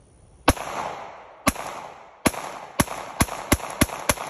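Gunshots from a 9mm Glock 19-pattern pistol built on a 3D-printed PLA Plus frame: eight shots in a string, about a second apart at first, then quickening to about three a second. The pistol fires and cycles every round without a stoppage, the printed frame holding up.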